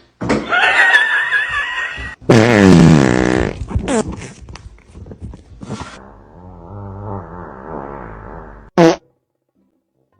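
A string of separate fart sound effects, one after another, each a buzzy, wavering tone. The loudest comes about two seconds in, a longer, lower one starts at about six seconds, and a short, sharp one comes near nine seconds.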